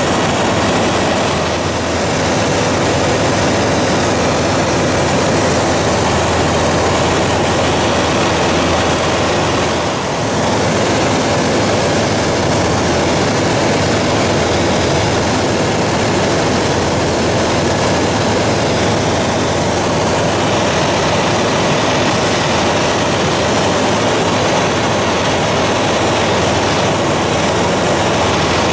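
Light propeller aircraft's piston engine and propeller running steadily, heard from inside the cockpit, with a brief dip in level about ten seconds in.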